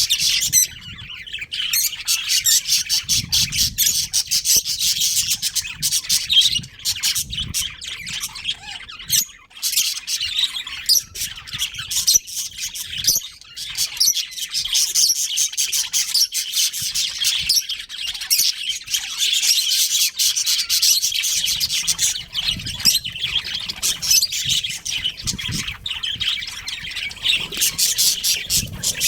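A colony of budgerigars chattering and chirping continuously, many rapid overlapping high chirps and squawks.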